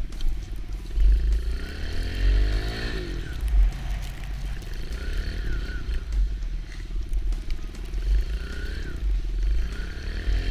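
Kawasaki KLX110's small single-cylinder four-stroke engine running under way through snow, revving up and dropping back several times as the rider works the throttle.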